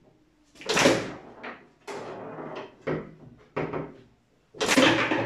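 Foosball table in play: players on steel rods strike the ball, which knocks against the wooden table. Two loud bangs, about a second in and near the end, with lighter clacks between.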